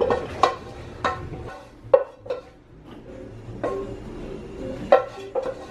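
Kitchen clatter of dishes and utensils: a scattered series of sharp knocks and clinks, some ringing briefly.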